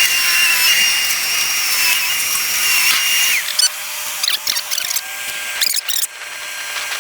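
A small motor whining at a steady high pitch, cutting out with a quick drop about three and a half seconds in; scattered clicks and scrapes follow.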